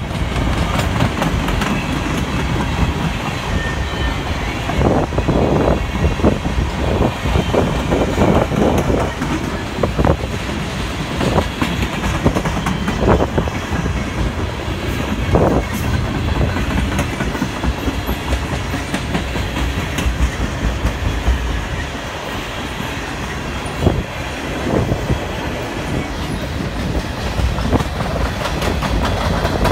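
Freight train cars (covered hoppers, gondolas and tank cars) rolling past close by: a steady rumble of steel wheels on rail with irregular clanks and knocks, heaviest in the first half.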